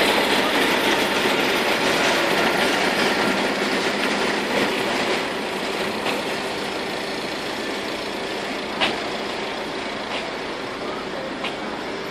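Steady mechanical running noise that slowly gets quieter, with a sharp click about nine seconds in and a fainter one near the end.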